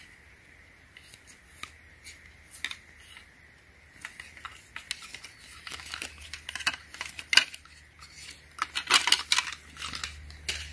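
Plastic sunglasses frames clicking and knocking against each other as they are handled, with light rustling of their tags, denser near the end.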